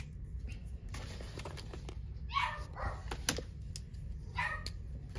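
A dog giving a few short barks, a pair about halfway through and another pair near the end, with small clicks of pens being handled on a desk.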